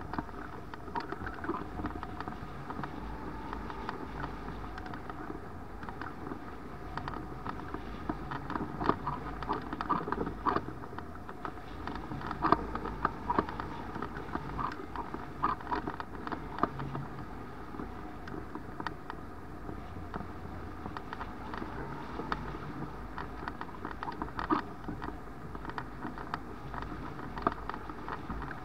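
Airflow rushing over a camera mounted on a hang glider (Icaro RX2) in flight, with many fast, irregular crackling ticks from wind buffeting.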